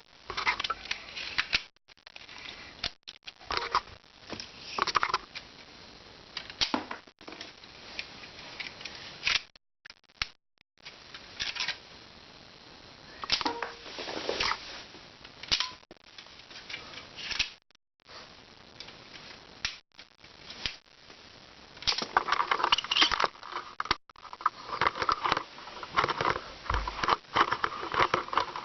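Plastic Lego pieces clicking and rattling as they are handled, in irregular bursts with several abrupt silent gaps.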